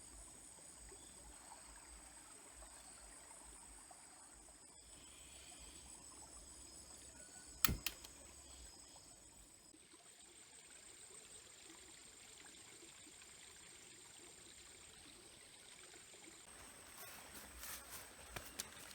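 Faint outdoor ambience of insects trilling steadily at a high pitch, over a soft stream-like hiss. A sharp double knock sounds about seven and a half seconds in, and a few lighter clicks come near the end.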